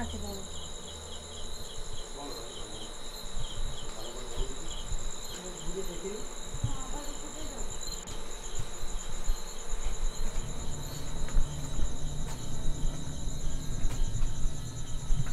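Night chorus of crickets and other insects: steady high trilling with a row of quick repeated chirps. Uneven low rumbling and knocks underneath grow louder in the second half.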